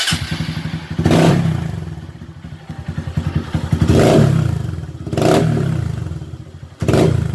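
Motorcycle engine with a modified Fortuna aftermarket exhaust, idling with a fast, even putter and revved in four sharp throttle blips that each die back to idle.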